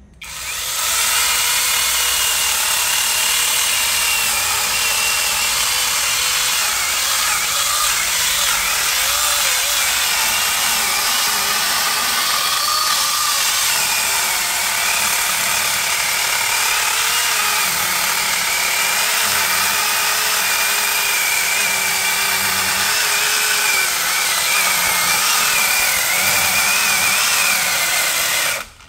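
Eurox 21-volt cordless electric chainsaw with a 12-inch bar cutting into a 16-inch jackfruit branch. The motor and chain whine runs steadily and wavers in pitch as the chain bites into the wood, then cuts off suddenly near the end.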